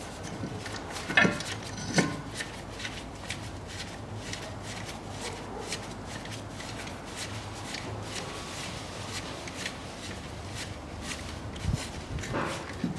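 A screwdriver driving the brake disc's retaining screw into the wheel hub: faint metal clicks and scraping, with two sharper knocks about a second and two seconds in and another cluster near the end.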